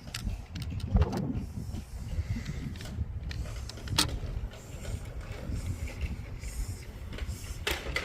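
Toy cars rolling down a ramp: a steady low rumble of wheels, with sharp knocks about a second in, about four seconds in and near the end.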